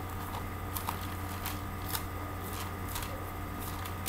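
Pages of a Bible being leafed through, with soft rustling and scattered small crisp flicks of paper, over a steady low hum.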